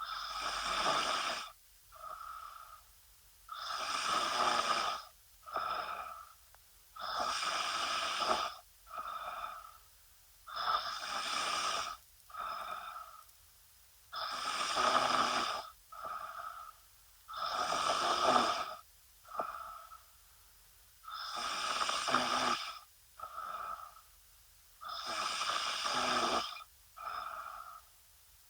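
A woman snoring in her sleep: about every three and a half to four seconds a long, loud snoring breath, each followed by a shorter, softer one.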